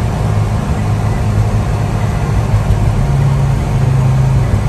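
A 1989 Suzuki Carry's supercharged 550 cc three-cylinder engine drones steadily at highway speed, heard inside the cab over tyre and road noise. The engine note steps up in pitch about three seconds in and settles back near the end.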